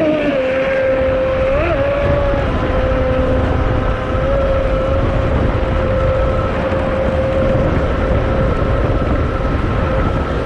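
Pro Boat Zelos 48 RC catamaran's 10S brushless motor whining at a steady pitch while the hull runs over the water, with a brief blip up in pitch about two seconds in. Water and wind rush under the whine.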